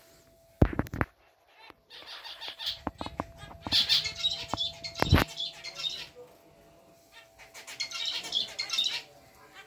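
Zebra finches calling: rapid buzzy chatter from about two to six seconds in and again near the end. A few sharp thumps come early and about five seconds in.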